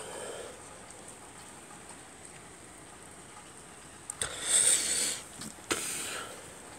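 Steady rain falling, an even hiss, with two short, louder rushes of hissing noise about four and five-and-a-half seconds in.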